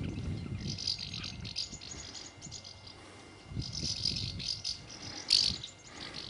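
A flock of house martins calling in flight: dense, dry twittering chirps in two bouts with a quieter gap between, the second bout loudest about five seconds in.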